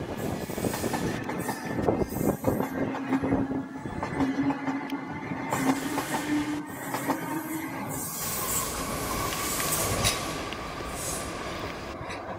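Double-deck electric suburban train passing close by on curved track, its wheels clattering over the rails with a steady squeal: a lower squealing tone for several seconds, then a higher one near the end.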